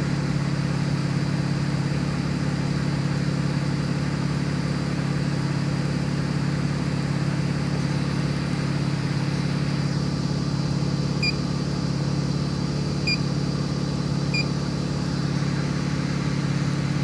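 BMW 330Ci's 3.0-litre straight-six engine running steadily with a deliberate vacuum leak open, unmetered air behind the air-flow sensor driving the fuel trims to their lean maximum. Three short electronic beeps sound in the second half.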